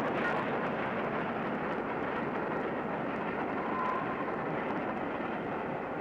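Flying Scotsman, an LNER A3 Pacific steam locomotive, and its train running along the line: a steady rushing rumble of the train on the move.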